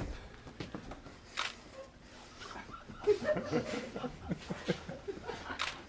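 A person's voice making short, broken chuckle-like vocal sounds without words, starting about three seconds in, with a sharp breathy hiss at about a second and a half and another near the end.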